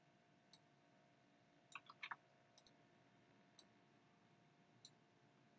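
Faint computer mouse clicks over near-silent room tone: a few single clicks, with a quick run of several clicks about two seconds in.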